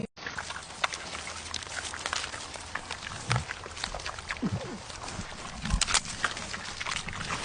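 A parrot making a few short low calls, about three, over steady clicking and noise.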